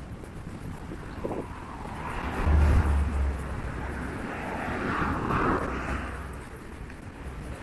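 A vehicle passing by, its noise swelling over a few seconds, with a low rumble near the start of the swell, then fading away.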